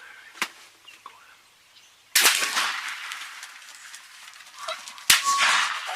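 Two shotgun blasts about three seconds apart, each sharp and loud, followed by a long fading echo.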